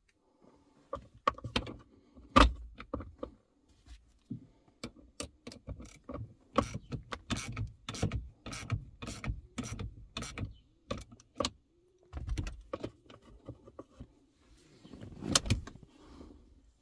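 Ratcheting clicks at a car's hand-brake lever while the hand brake is being adjusted: a fairly even run of sharp metallic clicks, about three a second, among scattered knocks and clinks of metal.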